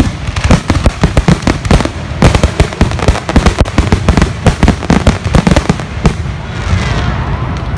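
Fireworks going off in rapid succession: many sharp bangs and crackling reports overlapping, with a few whistles near the end.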